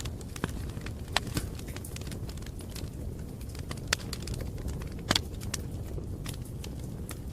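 Campfire burning: a steady low rumble with scattered sharp crackles and pops, the loudest a quick double pop about five seconds in.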